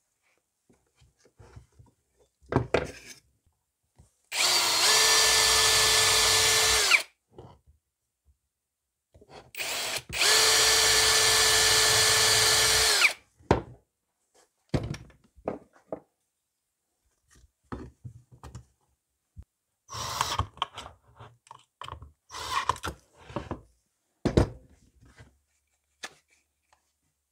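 Power drill running at steady speed twice, about three seconds each time, boring the two small pilot holes for a concealed Euro hinge's mounting screws in a plywood cabinet door. Scattered light clicks and knocks follow.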